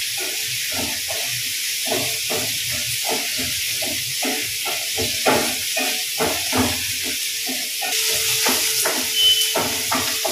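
Small onions (shallots) sizzling in hot oil in a non-stick frying pan, with a spatula stirring and scraping through them in short, irregular strokes over a steady hiss.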